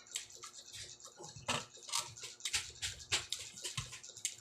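Close-up eating sounds: chewing with irregular wet mouth smacks and clicks, a few each second.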